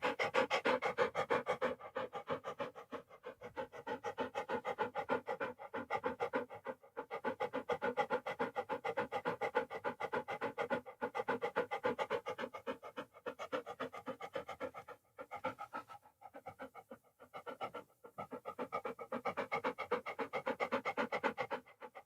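A dog panting quickly and evenly, about four to five breaths a second, with a few short pauses in the second half.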